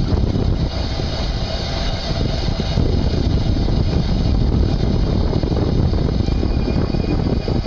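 Front hub motor of a Panasonic ViVi Charge electric-assist bicycle running, with a continuous rough clattering rattle and wind and road noise. The owner thinks the clatter is backlash from worn reduction gears inside the hub motor, after about 22,000 km of use.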